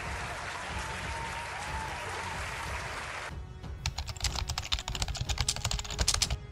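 A crowd applauding for about three seconds, then a rapid run of typewriter-style key clicks as on-screen title text types out, over background music with a low beat.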